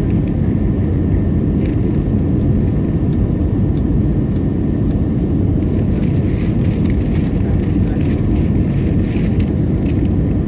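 Aircraft cabin noise during landing: a steady, loud low roar of engines and airflow, with scattered faint clicks and a little added hiss in the middle.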